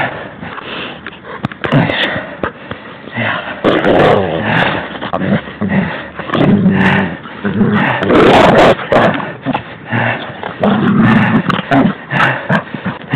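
A dog vocalising close to the microphone in irregular bursts while playing up against the man, the loudest bursts coming about four, eight and eleven seconds in.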